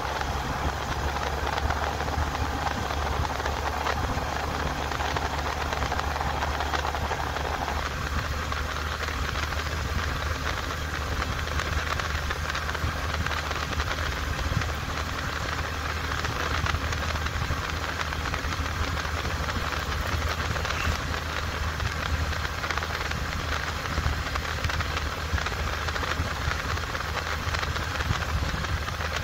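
Motorcycle engine running steadily while riding at speed, with wind and road noise rushing over the handlebar-mounted microphone.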